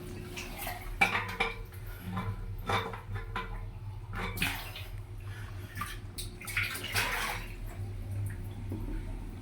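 Water splashing, with irregular clinks and knocks of hard fittings being handled, over a steady low hum.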